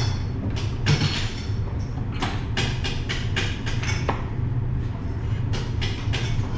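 Kitchen knife chopping fresh green herbs on a cutting board: a run of quick, uneven knocks, about two to three a second, over a steady low hum.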